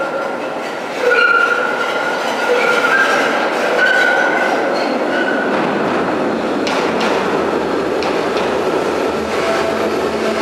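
SEPTA Kawasaki light-rail trolley coming through the subway tunnel and into the station. Its wheels squeal in thin high tones for the first few seconds, then give way to a steady rumble of wheels on rail. A single clack comes about seven seconds in, and a low hum from the car starts near the end.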